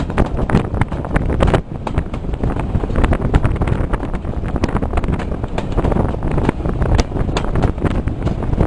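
Wind buffeting the microphone held out of a moving train's carriage window, in irregular gusts over the train's running noise on the rails, with a brief lull about a second and a half in.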